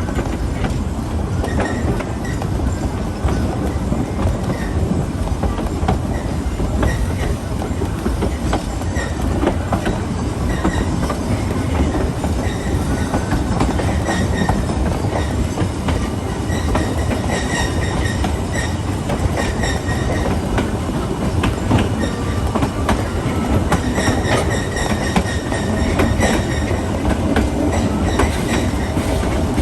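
Wheels of a passenger coach behind the narrow-gauge steam locomotive Tweetsie No. 12, rolling steadily with a constant rumble and clatter on the rails. Several short, high wheel squeals come in, most of them in the second half.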